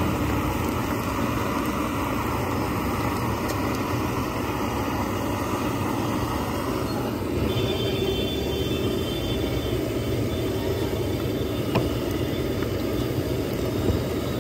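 Steady rumble and hiss of a gas burner with eggs frying in a steel pan, with a faint click twice near the end.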